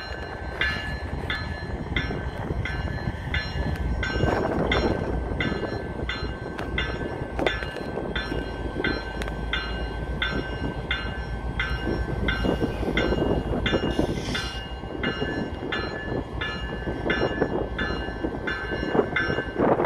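Locomotive bell ringing steadily, about three strokes every two seconds, over the low rumble of CSX diesel freight locomotives pulling a train away from a stop and picking up speed.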